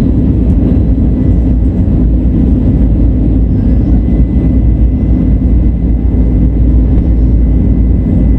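Airbus A320 jet engines and airflow: a steady, loud, low rush with a thin, steady high tone, unchanging throughout.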